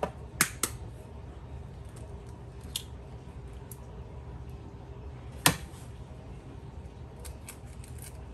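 Eggs being cracked against a mixing bowl: a few sharp taps, the loudest about five and a half seconds in, with lighter clicks of shell handling between.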